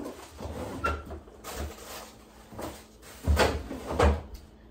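Groceries being set into an open refrigerator: a series of knocks and thuds as items land on its shelves, the two loudest about three and four seconds in.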